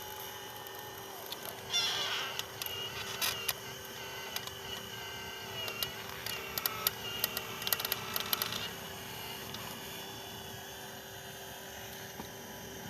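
Small electric motors of radio-controlled toy construction machines whining steadily, with two stretches of rapid clicking and scraping, about two seconds in and again from about six to nine seconds in.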